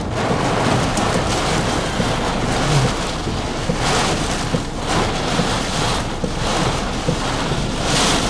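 Storm wind and rain rushing against the car in a severe windstorm, a steady noise that swells a few times in gusts.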